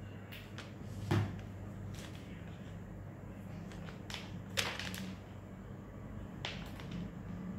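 Packaging being handled: a few sharp clicks and short crinkly rustles, about five over several seconds, over a low steady hum.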